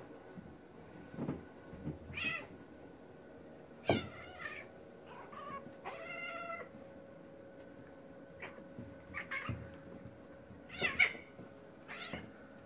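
Two domestic cats play-fighting, with repeated short meows and yowls, the loudest about eleven seconds in.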